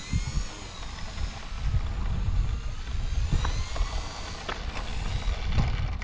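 Radio-controlled model airplane's motor and propeller whine, drifting slowly down and up in pitch, under heavy wind rumble on the microphone.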